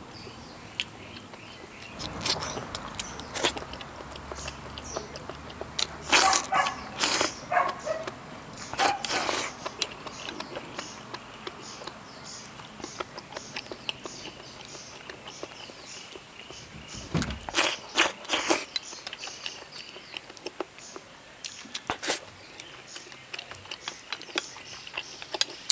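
A person eating rice soaked in spicy hot-pot broth with chopsticks: soft clicks of chopsticks against the bowl and slurping, with a few louder short bursts of sound about six, nine and seventeen seconds in. A faint, regular high chirping goes on in the background.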